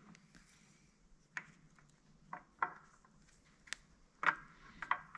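A handful of light, irregular clicks and clinks of metal clutch parts being handled and set in place on a workbench.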